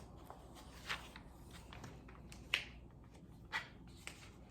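Hands leafing through a paper instruction booklet: a few soft rustles and taps about a second apart.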